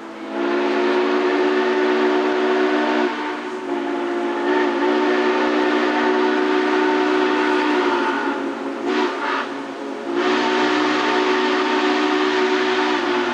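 Steam locomotive chime whistle on C&O 1309, a 1949 Baldwin 2-6-6-2 Mallet, blowing long loud blasts of a steady chord. Near two-thirds of the way through the blast breaks into a couple of short toots, then a long blast starts again and holds.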